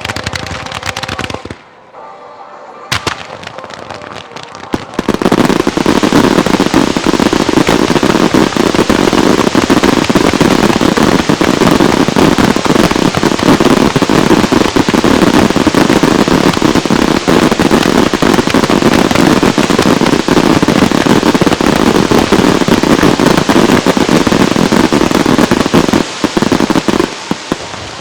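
Fireworks display: a few scattered shell bursts at first, then from about five seconds in a dense, continuous barrage of bursts and crackle that lasts about twenty seconds and thins out near the end.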